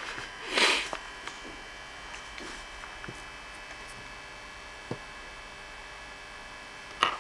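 Steady electrical mains hum with faint high whining tones, broken by a short loud noisy burst about half a second in and another near the end, with a few light clicks as small LED light panels are picked up and handled.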